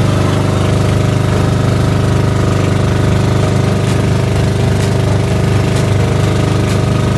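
Engine of a motorized outrigger boat (bangka) running steadily at an even speed.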